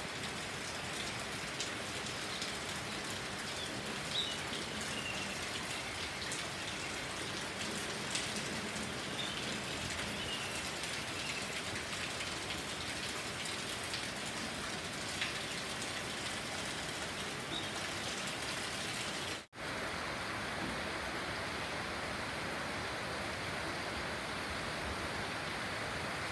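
Steady rain falling on leafy foliage, with a few brief bird chirps in the first half. The sound cuts out for an instant about two-thirds of the way through, then the rain carries on a little duller.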